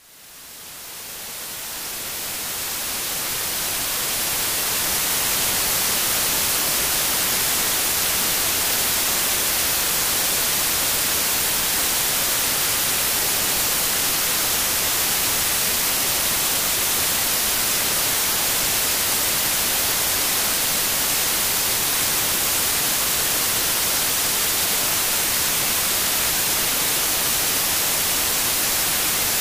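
Steady static hiss like white noise, brightest in the high end, fading in over the first few seconds and then holding level.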